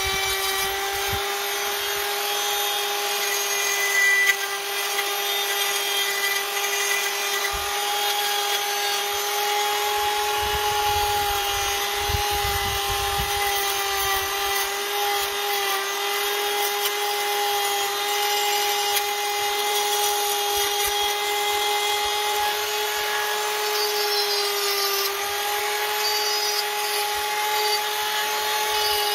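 King Craft handheld rotary tool spinning a wire brush against a steel chassis, scrubbing rust off the edges of punched holes: a steady motor whine over the scratchy rasp of the wire bristles on metal.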